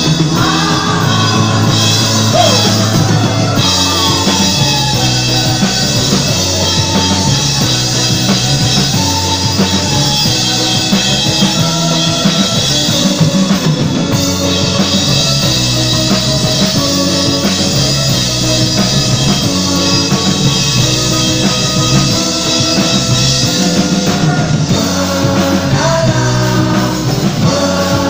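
Rock band playing live through a concert PA: guitars and drum kit with a sung vocal line.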